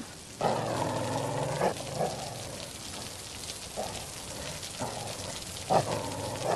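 Steady storm rain, with several short pitched sounds over it; the longest and loudest starts about half a second in and lasts just over a second.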